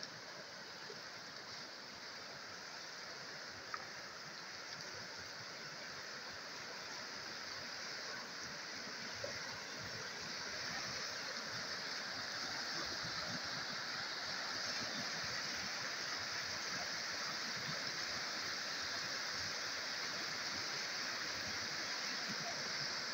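Muddy, swollen river rushing over rocks in rapids: a steady rush of water that grows gradually louder.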